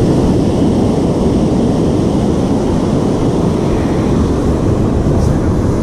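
Wind buffeting the microphone mixed with the wash of breaking surf: a loud, steady low rush.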